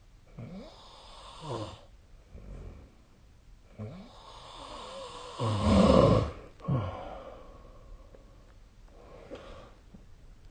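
Snoring during sleep: a run of separate snoring breaths, the loudest and longest about six seconds in, with a fainter one near the end.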